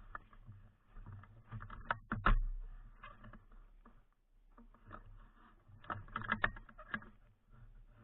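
Irregular rustling and clicking of a player's movement and gear close to a body-worn action camera, with one sharp knock about two seconds in and another cluster of clicks around six seconds.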